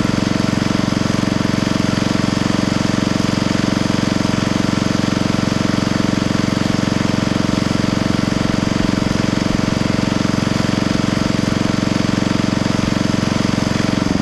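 Log splitter's engine running steadily at constant speed, then cutting off abruptly.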